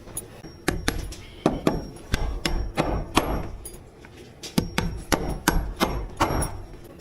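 Hammer driving nails into framing lumber: two runs of quick, sharp blows, about three a second, with a short pause in the middle.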